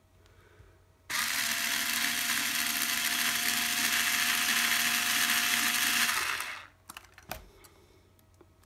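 Small cordless electric drill running at a steady speed for about five seconds as its bit cuts into a stripped bottom-plate screw of a Nikon FE camera, then spinning down.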